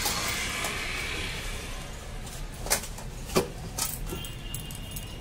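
Raw paratha dough on a hot iron tawa, giving a soft hiss that fades over the first couple of seconds. About halfway through come a few sharp clinks.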